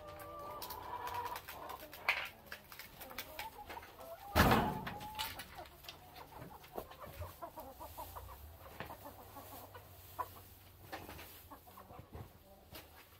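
A flock of hens clucking and calling, with small rustling clicks throughout and one loud thump about four seconds in.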